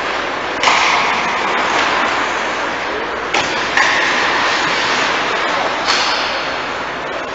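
Ice hockey rink sound during play: a steady hiss of skates on the ice, with a few sharp knocks. The sound changes abruptly about a second in, again near the middle, and a little before the end.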